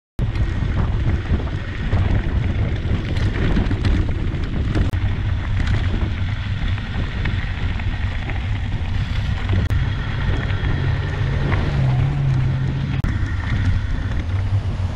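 Wind buffeting the camera microphone over the rumble of a downhill mountain bike rolling fast on a rough gravel road, with scattered sharp knocks from the bike jolting over stones.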